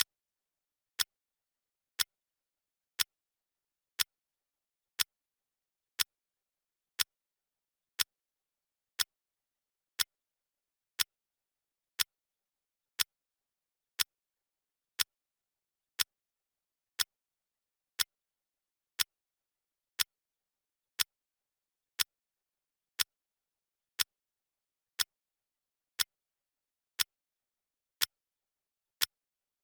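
Clock ticking sound effect: one short, sharp tick every second, evenly spaced, with dead silence between ticks.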